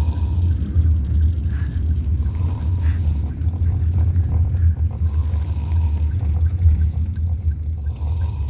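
A child snoring while asleep sitting up, with faint breaths coming back about every three seconds over a loud, steady low rumble.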